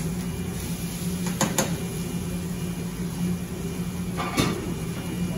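Steady low hum of kitchen equipment, with two quick knocks about a second and a half in and a louder clatter of metal cookware just after four seconds, as a pan is fetched.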